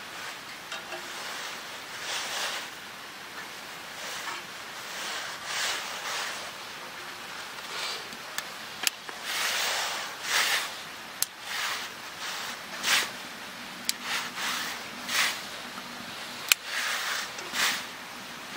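Dry twigs rustling and snapping as they are handled and pushed into a small steel wood stove's firebox, with a few sharp cracks in the second half as the kindling catches.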